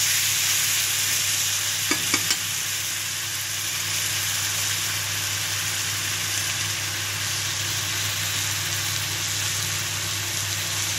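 Tomato masala frying in oil in a pan with a steady sizzle over a low hum. A steel spoon clicks against the pan a few times about two seconds in.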